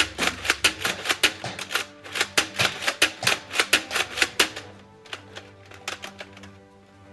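Nerf Elite Crossbolt dart blaster being primed and fired in quick succession: rapid plastic clacks, several a second, that stop about four and a half seconds in, followed by a few fainter clicks as it is handled. The stop is taken by the shooter for the blaster's priming lock catching when primed too fast. Background music plays throughout.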